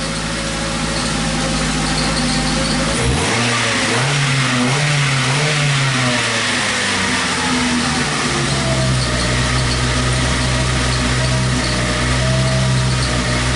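Ford Focus engine running; about three seconds in the revs rise and waver up and down, then settle to a steady run from about eight seconds. It runs much better but still misfires a little.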